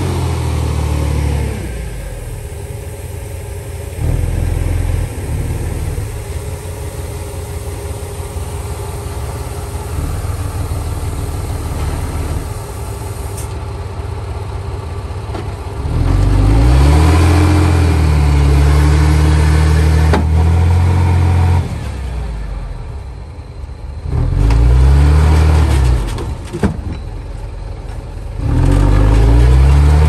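Diesel engine of a Komatsu D31P bulldozer running at a lower, steady speed, then revving up under load in three turns: rising in pitch and loudness about halfway through, again a few seconds later, and once more near the end, easing back in between.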